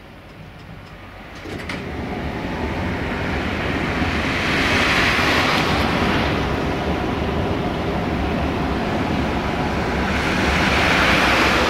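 Tram moving nearby: a rolling rumble and hiss that builds about a second and a half in and swells twice, with a faint whine under it.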